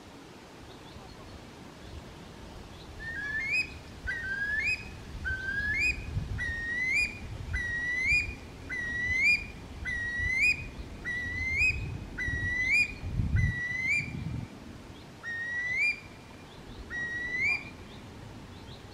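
Eurasian curlew calling: a run of short, rising whistled notes repeated a little faster than one a second, beginning about three seconds in, with a longer gap before the last two notes near the end.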